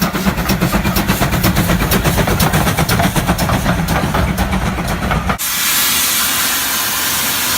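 A train running past with a steady low drone and a rapid, regular clatter of clicks. About five seconds in the sound cuts abruptly to a steady hiss.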